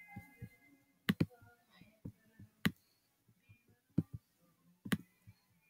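Computer mouse clicking: about eight sharp, separate clicks, several in quick pairs, as code blocks are picked up and dropped.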